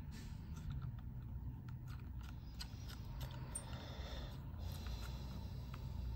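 Low steady hum with faint, scattered small clicks and taps.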